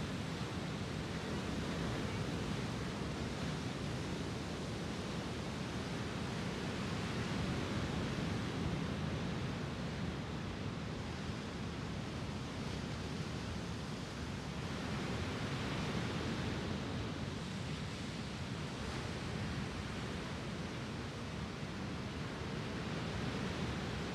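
Lake Superior surf breaking on a sand beach: a steady wash of waves that swells and eases every several seconds.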